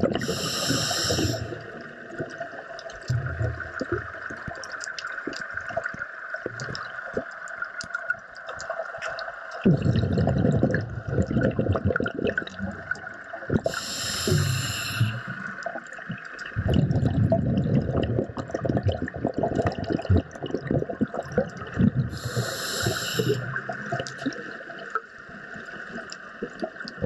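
Underwater sound of a scuba diver breathing through a regulator: three short hissing inhales, near the start, about 14 s and about 22 s in, each followed by a long rumbling burst of exhaled bubbles.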